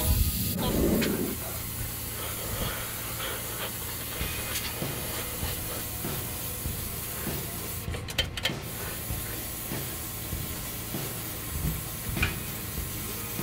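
Harbor Freight air spray gun hissing steadily as it sprays paint, with a short break about eight seconds in where the trigger is let off.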